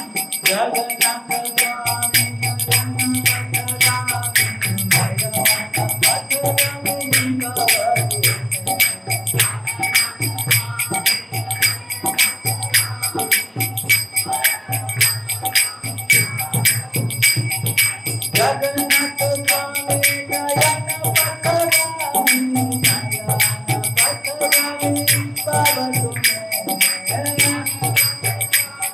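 Kirtan music: small hand cymbals (karatalas) strike in a fast, even rhythm over a low pulsing beat, with a stepping melody that is busier near the start and again in the last third.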